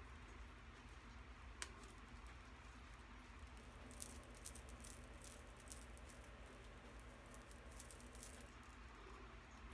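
Faint rustling of hair and scattered soft clicks as foam hair rollers are unclipped and pulled out of dreadlocks, with a few clicks about a second and a half in, a cluster around four to five seconds, and more near the end, over a low steady room hum.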